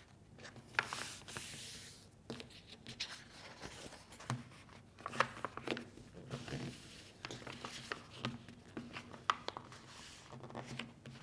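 A sheet of coloured paper being folded and creased by hand: rustling and sliding as it is handled, with sharp crackles as the folds are pressed flat.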